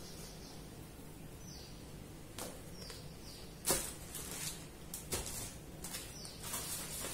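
Faint handling noises, a few rustles and knocks as things are moved about, the loudest about three and a half seconds in. Behind them a bird chirps repeatedly, short falling chirps.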